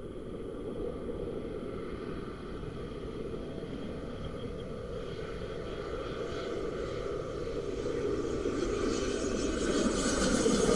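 Airbus A220-100 jet with Pratt & Whitney PW1500G geared turbofans on landing approach: a rumble growing steadily louder as the jet nears, with a higher hiss building over the last few seconds.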